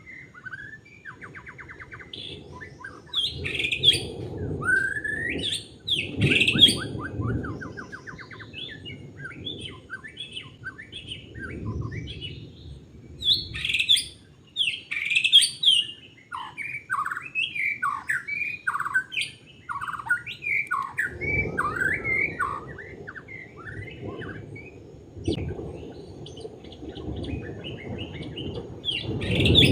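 White-rumped shama singing a long, varied song of whistled phrases broken by fast rattling trills, with a low rumbling noise underneath at times.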